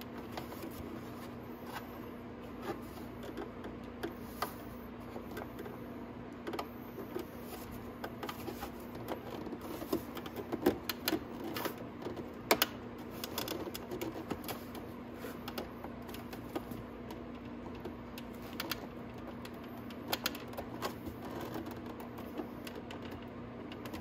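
Scattered clicks and snaps of the plastic side fairing's snap clips as the panel is worked loose by hand, busiest and loudest in the middle, over a steady low hum.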